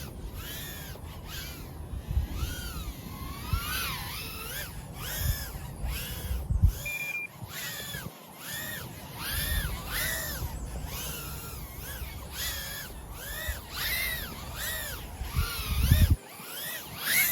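Brushless motors of a 1S tiny whoop drone whining, the pitch rising and falling about every half second as the throttle is pushed and eased through turns. A short steady beep sounds about seven seconds in.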